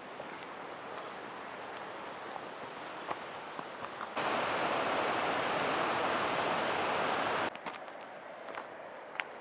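Rushing stream water making a steady hiss. It gets much louder about four seconds in and drops back abruptly about three seconds later.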